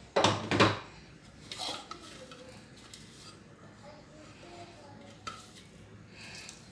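Kitchen dishes and utensils being handled while working pastry dough: two loud clattering knocks just after the start, then a few light clinks and taps.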